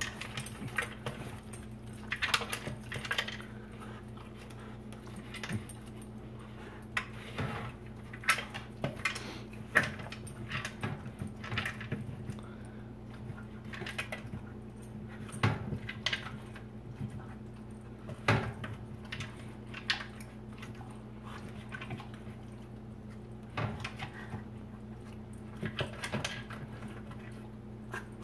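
A dog eating from a plastic slow-feeder bowl: irregular clattering and clicking as the food and its muzzle knock against the bowl's ridges, over a steady low hum.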